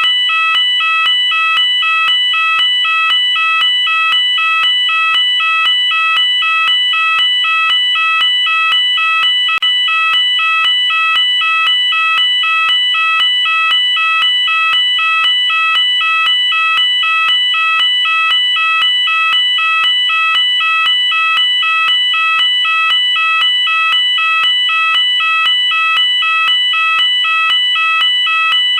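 UK electronic fire alarm sounder going off continuously, alternating between two tones in an even, unbroken rhythm.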